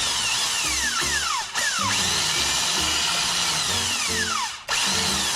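Starter motor spinning freely without its pinion engaging the flywheel, cutting out briefly twice: a no-crank fault. Background music with a steady bass line plays under it.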